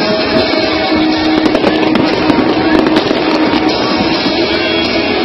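Music playing loudly together with an aerial fireworks display, whose bursts pop and crackle many times throughout.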